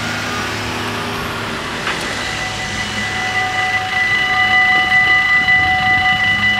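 A car drives over the level crossing. About three seconds in, the crossing's electronic warning bells start ringing, a steady high ring that grows louder a second later, warning of an approaching train.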